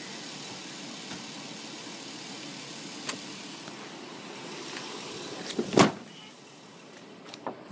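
Door handle of a red Toyota pickup truck pulled, giving one loud clunk of the latch nearly six seconds in, with a few lighter clicks just before and after, over a steady low rush.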